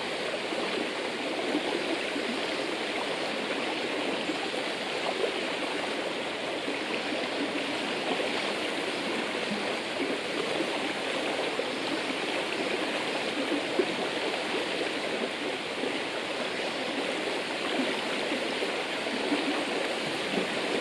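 River water bubbling and babbling steadily over rocks, with small gurgles flickering through the constant rush.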